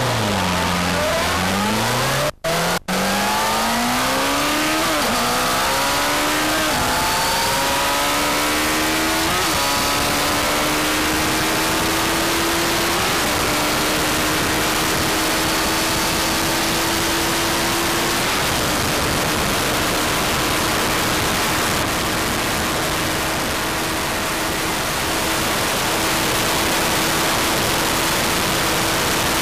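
Sport motorcycle engine accelerating hard through the gears, its note climbing and dropping back at each shift several times in the first ten seconds, then holding a high steady note at very high speed. Heavy wind rush over the microphone runs underneath, with two very short dropouts about two and a half seconds in.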